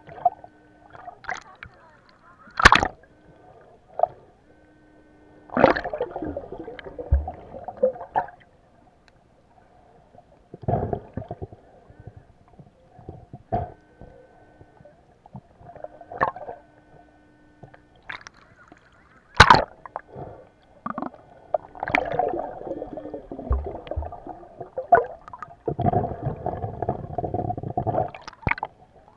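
Underwater sound through a waterproof camera housing: a few sharp knocks on the housing and stretches of churning water and stirred sand as the seabed is dug by hand, with a faint steady buzz that switches on and off several times.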